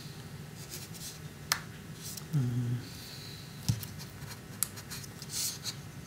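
Fingers prying and scraping at the plastic parts of a Nexus One phone, with a few small sharp clicks and a brief rasping rub near the end. A short low hum of a voice comes about two and a half seconds in.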